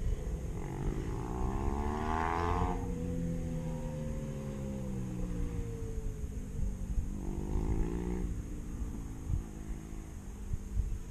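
Motorcycles accelerating past on a canyon road: engine note climbs in pitch as one bike pulls through the gears and then drops away as it passes, with a second bike revving up and passing about seven seconds in.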